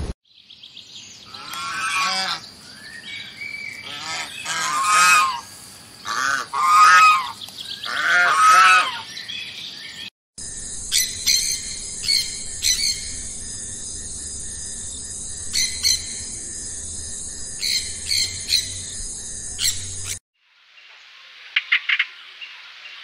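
A series of loud calls for about the first ten seconds, each half a second to a second long and rising and falling in pitch. Then a sun conure's short, sharp squawks, a few at a time over a steady high hiss. Near the end, a few quick chirps from a streak-eared bulbul.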